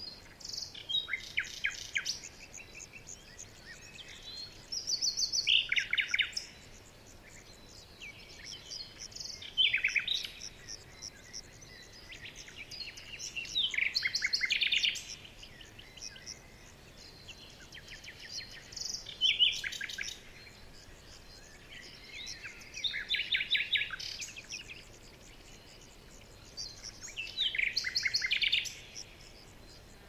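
A songbird singing the same short song over and over, seven times, each song a quick run of trilled notes with pauses of a few seconds between.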